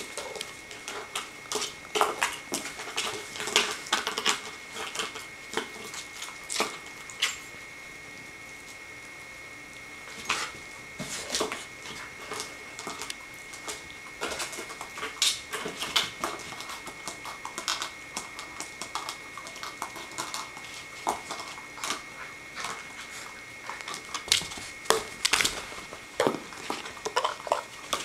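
A puppy mouthing and knocking a plastic dog bowl about on carpet: irregular clacks and knocks of hard plastic, with a quieter stretch about eight to ten seconds in.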